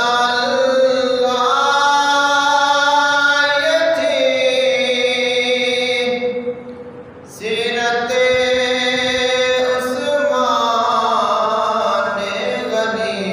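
A man singing an Urdu manqabat unaccompanied, holding long, drawn-out notes. There are two long phrases with a short break for breath about six and a half seconds in.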